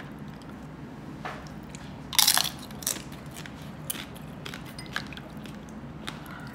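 Crispy lechon (roast pig) skin crunching as it is bitten: one loud crunch about two seconds in, then chewing with a few softer crunches and clicks.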